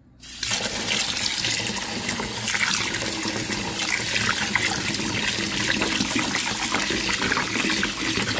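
Kitchen tap running a stream of cold water into a small pot of just-blanched lacquer tree shoots in a stainless steel sink, splashing in the pot: a cold-water rinse after blanching. The water comes on a moment in and then runs steadily.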